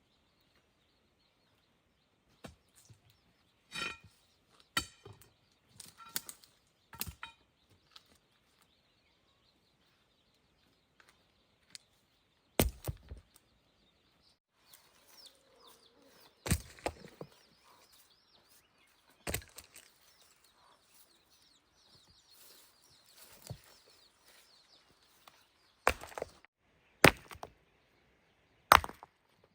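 A series of sharp tool blows a few seconds apart, lighter taps in the first several seconds and louder strikes from about halfway on, three of them close together near the end.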